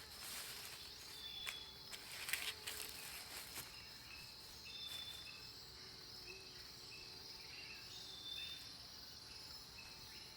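Outdoor insect chorus: a steady high-pitched buzz with short high chirps repeating every second or so. A few faint crackles and ticks in the first few seconds.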